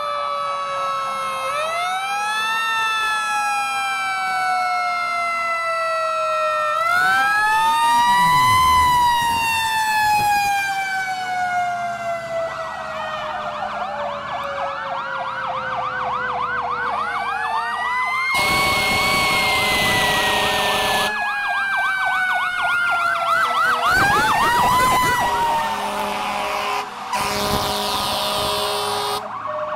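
Several fire truck sirens sounding together: wails that rise quickly and fall slowly overlap, with a fast yelping warble in the middle. Loud horn blasts come in the last third, a long one about 18 seconds in and shorter ones later.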